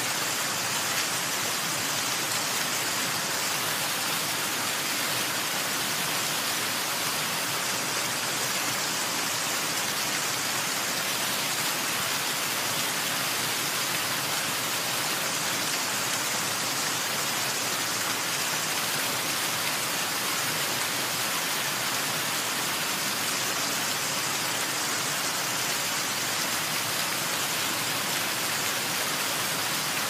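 A waterfall: a steady, even rush of falling water, bright and hissy rather than deep, with little low rumble and no change throughout.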